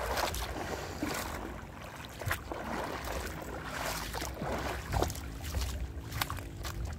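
Footsteps crunching and splashing over the wet coral rubble and mud of an exposed reef flat, with scattered short knocks and an uneven low rumble of wind on the microphone. A faint steady hum runs underneath.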